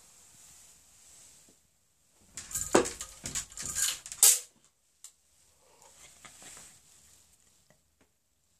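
Beaded chain hanging on a door rattling and clicking against it for about two seconds, ending in one sharp clack, with faint rustling before and after.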